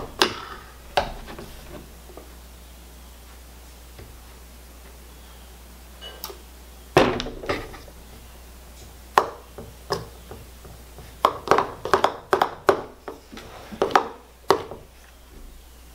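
Spoon tapping and scraping against a mixing bowl while stirring a runny glue, shaving-cream and saline slime mixture that has not yet set into slime. A couple of taps, a pause of several seconds, then taps coming thick and fast in the second half.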